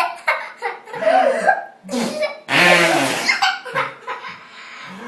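A toddler blowing wet raspberries with his lips, making mouth fart noises, mixed with laughter. The loudest spluttering comes a little after the middle.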